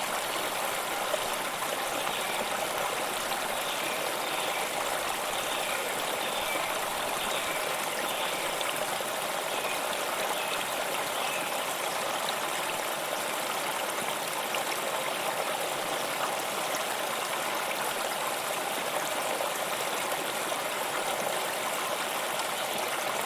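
Waterfall: water rushing steadily and evenly, a bright hiss-like rush with little deep rumble.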